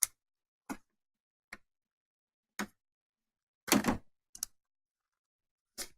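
Handling noise from a cordless screwdriver and its carry pouch: a string of short, separate clicks and knocks, with a longer, louder scuff about four seconds in.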